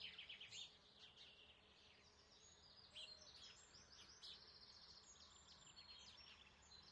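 Faint birdsong: small birds chirping and trilling, several calls overlapping at different pitches.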